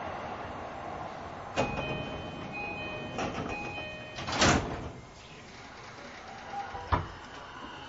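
Inside an E233-5000 series commuter train stopped at a platform: a short repeating electronic chime sounds for about two and a half seconds, then the sliding doors shut with a loud thud about four and a half seconds in. A sharp click follows near the end.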